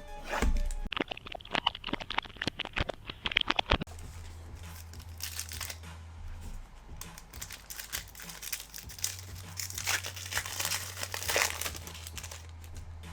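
Trading card packs being handled and torn open: plastic foil wrappers and packaging crinkling and ripping, with a fast run of rips in the first few seconds and looser crinkling afterwards.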